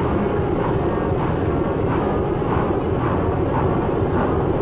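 Streamlined steam locomotive working, a rhythmic exhaust chuff just under twice a second over a steady rushing noise.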